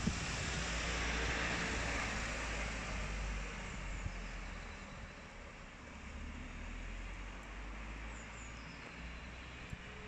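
Road traffic: a motor vehicle passes with tyre hiss and engine rumble, loudest about a second or two in and fading within a few seconds. A quieter steady hum follows.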